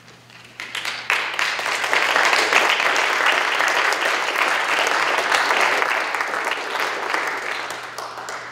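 Audience applauding: a dense patter of many hands clapping that builds about half a second in, holds, and fades away near the end.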